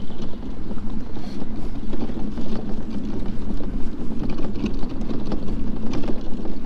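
Mini Crosser electric mobility scooter driving over a bumpy, muddy track: a steady low rumble from the drive and tyres, with scattered knocks and rattles as it goes over the bumps.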